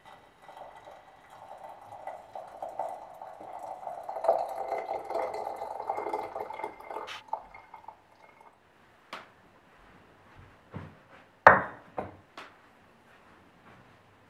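Liquid running or pouring for about seven seconds, followed by a few sharp knocks and clinks like dishes being handled, the loudest about eleven seconds in.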